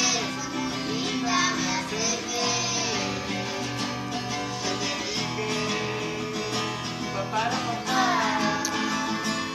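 Acoustic guitar strumming with voices singing a song, the singing coming up strongly about three-quarters of the way through.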